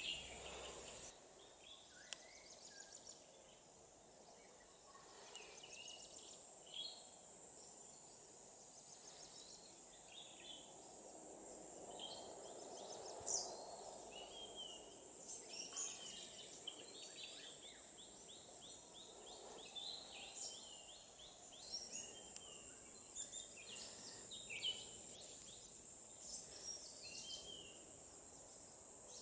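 Wild birds chirping and calling on and off, with several short runs of quick repeated notes, over a steady faint high hiss.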